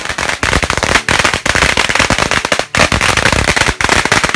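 A string of firecrackers going off: a rapid, loud run of bangs that starts suddenly and rattles on with only brief gaps.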